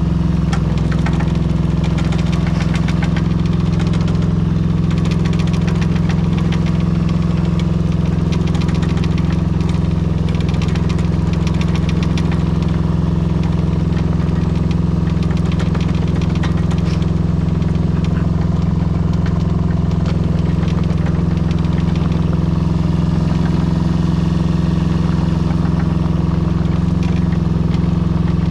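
Small Yanmar diesel engine of a 2004 Daewoo Solar 010 mini-excavator running steadily as the machine drives through snow, with light clattering over the engine sound.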